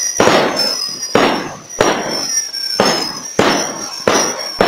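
Fireworks display: aerial shells bursting one after another, about seven loud bangs at uneven intervals, each trailing off before the next.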